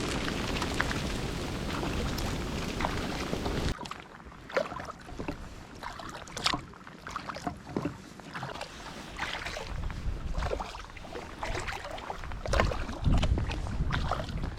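Wind rumbling on the microphone, cutting off abruptly about four seconds in, then water splashing and lapping against a kayak in scattered small splashes.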